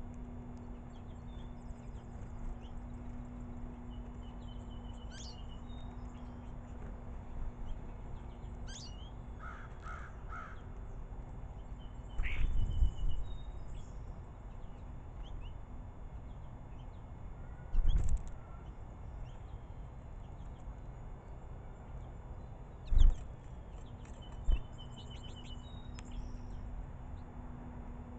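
Goldfinches and starlings calling: scattered short high chirps and twitters with a few harsher calls. Several loud low thumps break in, one about twelve seconds in lasting about a second, and shorter ones later.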